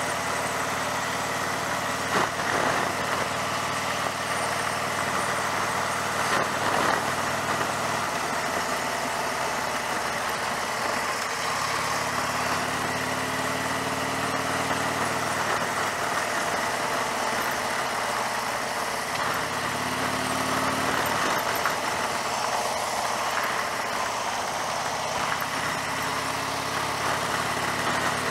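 Cruiser motorcycle engine running at a steady cruise while riding, with wind and road noise over the microphone. The engine note rises gently a couple of times.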